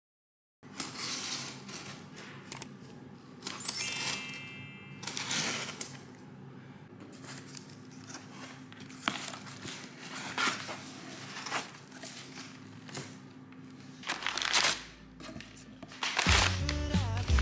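Cardboard shipping box being opened by hand: the flaps and crumpled kraft packing paper rustle and crinkle in a string of short, irregular scrapes over a faint steady hum. Background music comes in near the end.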